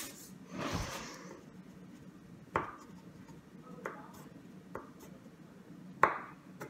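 A short rustle about a second in, then four sharp knocks spaced roughly a second apart, each with a brief ring.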